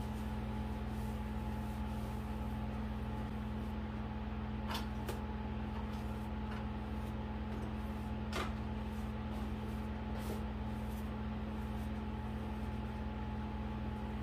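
A steady low hum with a fainter higher tone held underneath it, and a few faint clicks in the middle.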